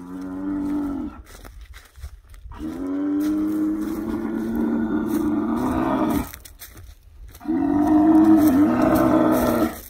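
A bull bellowing three times: a short call at the start, a long call of nearly four seconds, and a third near the end that dips in pitch before it stops.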